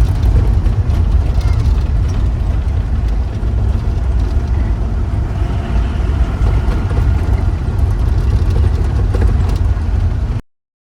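Loud, steady low rumble of a shared taxi on the move: engine and road noise. It cuts off suddenly near the end.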